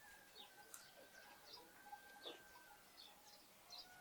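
Sparrows and other small birds chirping faintly, with many short, quick chirps scattered throughout. A thin steady whistle is held for about a second at the start and again around the middle.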